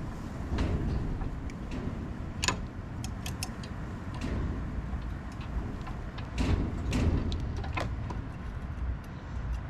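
Irregular metallic clicks and knocks of a wrench and other hand tools working a bolt on an ATV winch mount, over low handling rumble, with sharper clinks about two and a half seconds in and again near six and a half and seven seconds.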